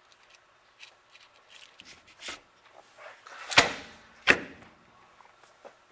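Metal parts of a Delco Remy starter knocking together on a steel workbench as the field-frame case is fitted onto the armature and end plate: some light clicks, then two sharp knocks a little under a second apart past the middle.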